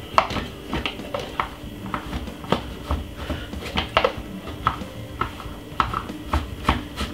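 Irregular plastic clicks and light knocks as the blade lid is fitted and twisted onto a Ninja single-serve blender cup filled with sugar cane chunks, ginger and water.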